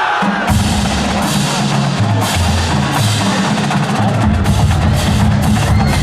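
Marching band drumline playing: tuned bass drums sounding a pattern of low notes that step up and down in pitch, with sharp stick or rim clicks over them, starting about half a second in.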